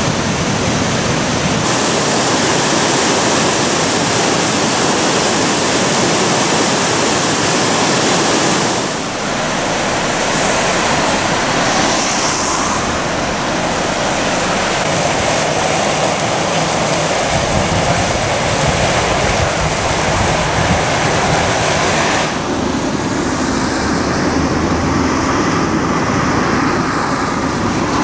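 Steady rushing water noise of heavy rain and a swollen river running in flood, changing in tone twice as the shots change. A low rumble of road traffic comes in past the middle.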